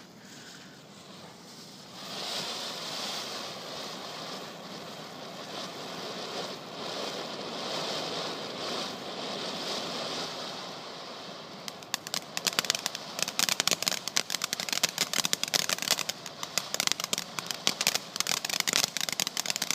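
Pyro fan ground-fountain firework spraying sparks with a steady hiss that starts about two seconds in. About twelve seconds in, it changes to rapid, dense crackling.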